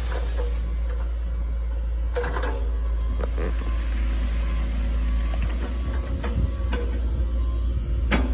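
Hitachi ZX110 MF excavator's diesel engine running with a steady low drone, with a few sharp knocks and creaks about two, three and eight seconds in.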